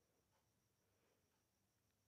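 Near silence: the sound track is essentially muted between narration lines.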